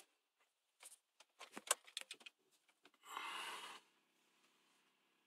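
Faint clicks and rattles of the key in an Alfa Romeo 156's ignition lock, turned to the on position, then a short hiss-like buzz of under a second as the ignition comes on, before cranking.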